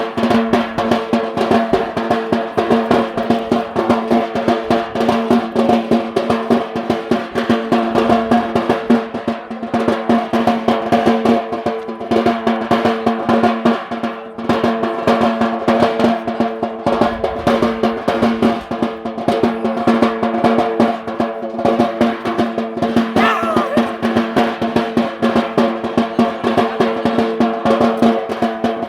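Fast, steady drumming of traditional Yemeni bara' dance music, over a held droning pitch.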